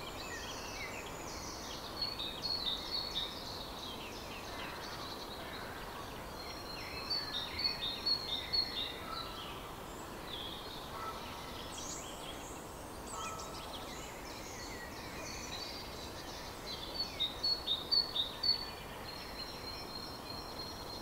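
Songbirds singing in short bursts of quick high chirps every few seconds over steady background noise.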